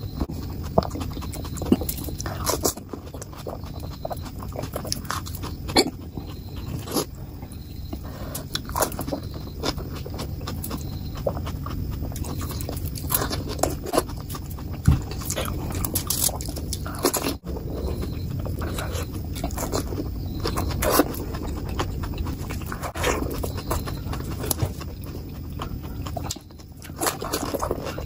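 Close-up eating sounds of golgappa (pani puri): crisp fried shells crunching and wet chewing in irregular, closely spaced crunches, played at double speed.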